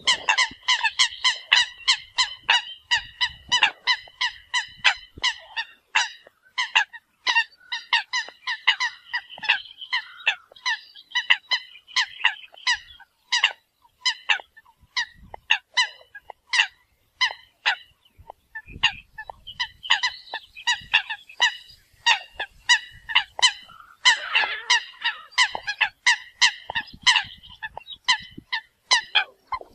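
A flock of Eurasian coots calling, short calls overlapping in a rapid stream of several a second. The calls thin out for a few seconds in the middle, then grow dense again.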